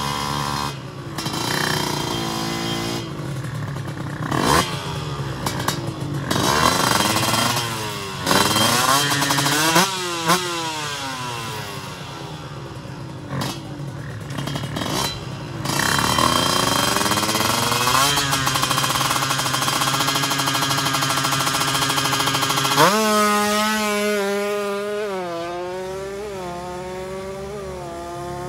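Two-stroke Kawasaki Ninja drag bike engine revved again and again in sharp up-and-down blips on the start line. About 23 seconds in it launches and pulls away, its pitch climbing and dropping back in a quick run of upshifts as it accelerates down the strip.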